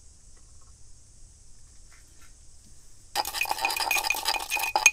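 4:1 epoxy being stirred in a small glass jar, the stirrer clinking and scraping quickly against the glass, starting about three seconds in after a quiet start.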